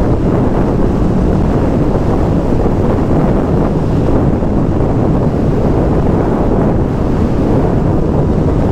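Heavy wind buffeting the microphone on a moving motorcycle, with the Honda CB650R's inline-four engine running steadily underneath.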